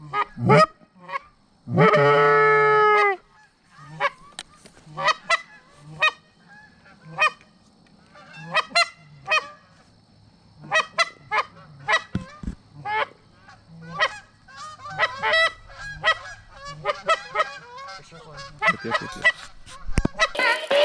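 Geese honking: many short honks throughout, with one long loud honk about two seconds in.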